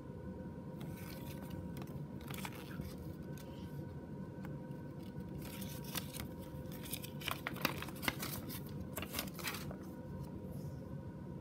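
Folded paper checklist leaflet being handled and unfolded: crinkling and crackling paper, busiest from about halfway to near the end, over a steady low hum.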